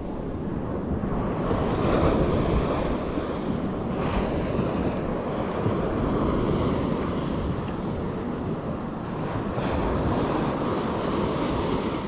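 Gentle ocean waves breaking and washing up on a sandy shore, with wind buffeting the microphone. The surf swells louder about two seconds in and again near the end.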